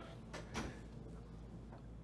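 Quiet room tone with a steady low hum and one faint, short click or rustle about half a second in.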